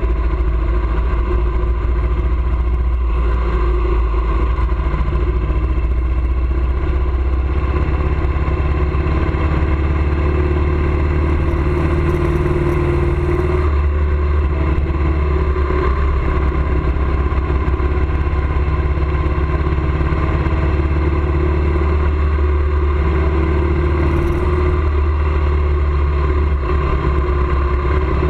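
A vehicle engine running steadily with road noise, a constant low drone that holds its level throughout.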